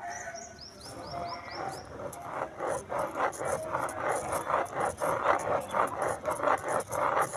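A pen scratching on paper as it is driven around inside a plastic spirograph ring, heard as a rhythmic rasping of about two to three strokes a second that grows louder after about two seconds. A quick run of about six high chirps sounds in the first two seconds.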